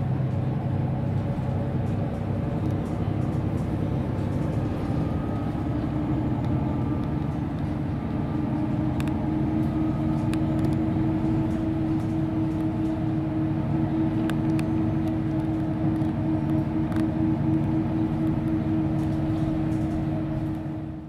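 2004 Mercedes-Benz Citaro city bus under way, its engine running steadily. The engine note climbs a little early on and then holds, with a few light rattles.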